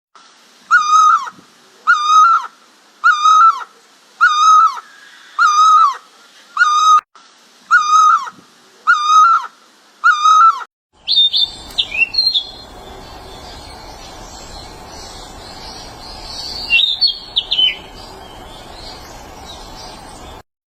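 A bird repeats one short, clear call about once a second, nine times in a row. About eleven seconds in, the sound cuts to a steady background hiss with a few brief high chirps.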